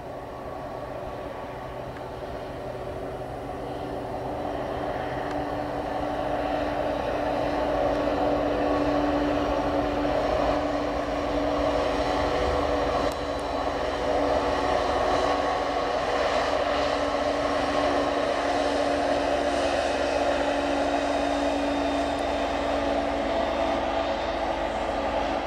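Freight train's diesel locomotives approaching, with the engine drone growing louder over the first eight seconds or so, then holding steady as the train runs by.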